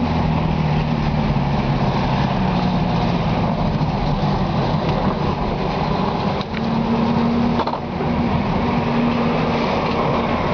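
VW Beetle's air-cooled flat-four running through a Puma-style 4-into-1 exhaust with a turbo-type tip, driving at low speed; the engine note dips briefly twice, about six and a half and eight seconds in.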